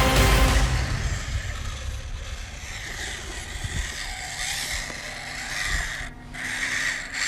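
Loud background music cuts out within the first second. After it comes the small electric motor and gear train of a 1/18-scale RC crawler whining as it drives, the whine rising and falling with the throttle and strongest near the end.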